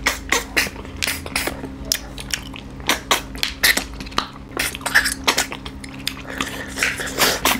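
Close-miked eating by hand: chewing and mouth smacks as snails in their shells and curry are eaten, with frequent irregular clicks of shells and fingers against the plates, over a low steady hum.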